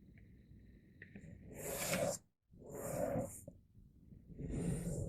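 A sheet of printer paper being folded in half and the crease pressed down by hand: three swells of paper rustling and rubbing as fingers slide along the fold.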